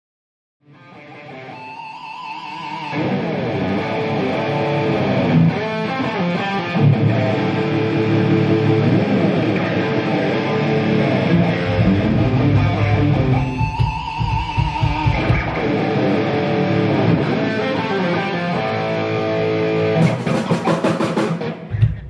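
Electric guitar played through an amplifier for a sound check, lead lines and chords that fade in at the start. About halfway there is a stretch of deep low notes, and near the end a quick run of strummed strokes before it cuts off.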